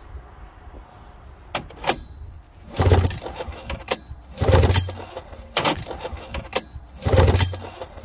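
Recoil starter pulled three times, spinning over the Polaris 440 fan-cooled two-stroke with its spark plugs out, with sharp clicks in between. The clicks are the grounded spark plugs firing, a sign that the ignition gives spark.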